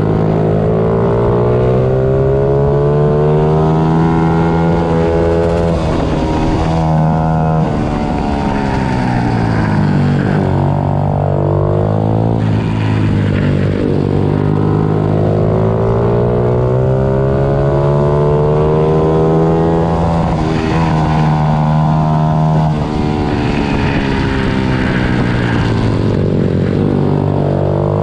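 Several pit bike engines racing together, the pitch climbing and falling in long waves as they rev up and drop back, with more than one engine overlapping.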